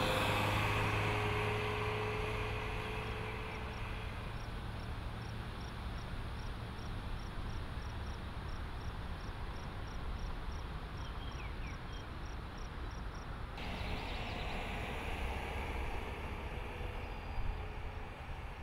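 Ram ProMaster City van driving past, its engine and tyre noise loudest at the start and fading away over the next few seconds, over a steady run of insect chirps, about two or three a second. After a cut about two-thirds of the way through, the van's engine and road noise rise again.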